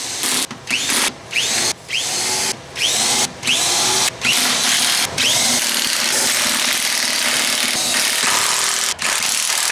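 Handheld power tool run in short trigger bursts, each spinning up with a rising whine, for about five seconds, then held on steadily for the rest.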